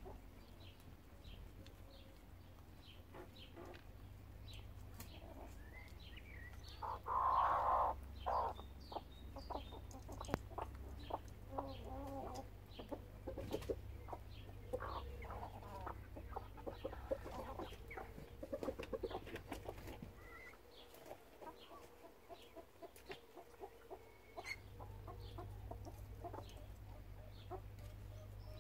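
Flock of hens and a rooster clucking in short scattered calls while foraging, with a louder pair of calls about seven seconds in.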